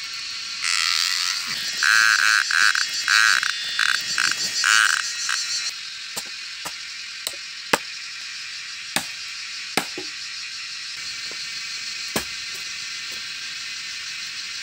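An animal call repeating in quick pulses for the first few seconds, most likely a frog, over a steady high hiss of insects. Then a hand tool strikes several times at irregular intervals, giving sharp single knocks about a second apart.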